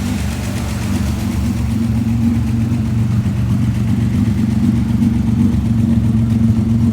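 A 1961 Austin Healey 3000's inline-six engine running steadily, a little louder from about two seconds in.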